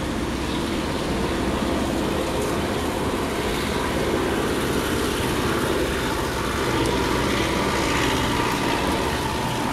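Steady rush of strong storm wind, heard through a window pane with rain driven onto the glass.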